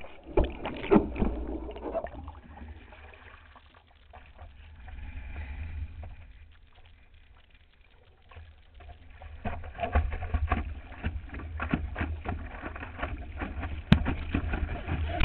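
Seawater splashing and churning around a surfboard-mounted camera, with a low rumble from water buffeting the microphone. It is busy at first, quieter for several seconds in the middle, then choppy splashing again from about ten seconds in, with a sharp knock near the end.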